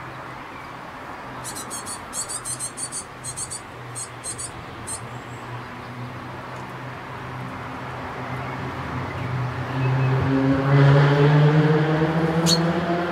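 Quick series of high, thin chirps from a small bird in the first few seconds, then a motor vehicle's engine hum that grows louder and slowly rises in pitch, loudest a little before the end, with one more short chirp over it.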